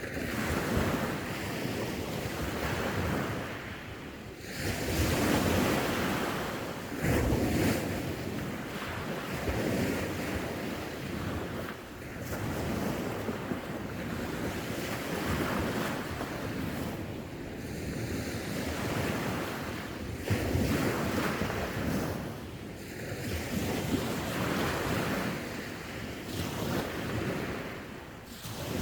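Sea waves breaking and washing on the shore, the surf swelling and easing every few seconds, with wind buffeting the microphone.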